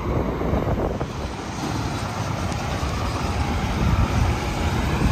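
Interstate highway traffic: tyre and engine rumble from passing vehicles, growing louder toward the end as one approaches, with wind buffeting the microphone.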